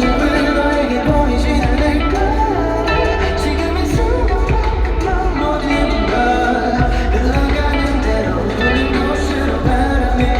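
Live pop music at a concert sound check: a man singing over a band with heavy bass, played loud through the venue's loudspeakers.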